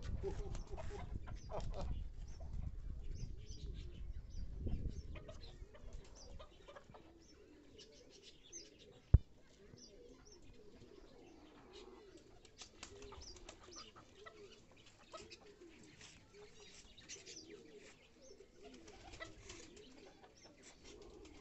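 Pigeons cooing over and over, with many short, high bird chirps throughout. A low rumble fills the first few seconds, and a single sharp click comes about nine seconds in.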